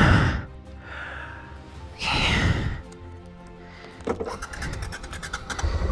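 Background music with steady held tones, broken by a sharp knock at the start and another loud noise about two seconds in. A series of clicks follows, and a low rumble sets in near the end.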